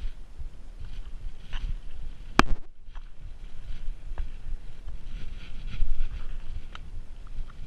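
Mountain bike rolling over rocky dirt singletrack, heard through a handlebar-mounted camera: a steady low rumble of tyres and frame vibration with scattered rattles and clicks. One sharp knock about two and a half seconds in.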